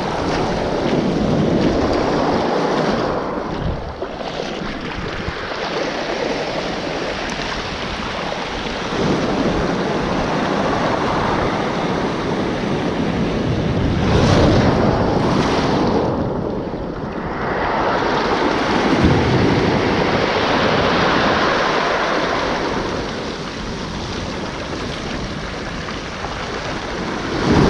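Sea surf breaking and washing up a pebble beach, swelling and fading in waves every few seconds.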